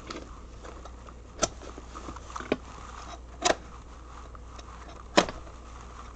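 A cardboard mailing box being handled and opened: four sharp, separate crackles and knocks of cardboard and packing tape, the loudest near the end, over a faint steady low hum.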